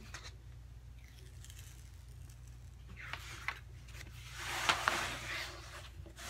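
Protective release paper being peeled back off the sticky adhesive of a diamond painting canvas, the paper rustling; it gets louder about halfway through as a larger stretch comes away.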